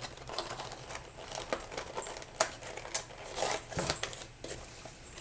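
Small objects being handled by hand: scattered light clicks, taps and rustling, with one sharper click about two and a half seconds in.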